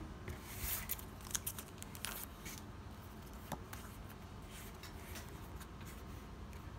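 Trading cards being handled: a stack of paper cards picked up and thumbed through, with a few brief scratchy slides of card against card.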